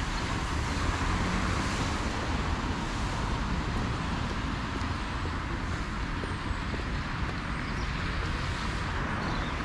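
Steady road traffic noise, tyres on wet roads.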